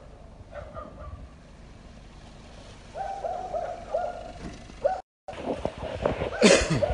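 An animal's short, even-pitched hooting calls repeated in little groups: two just under a second in, then four or five more between about three and five seconds in. Loud rustling and knocking of a phone being handled comes in the last second or so.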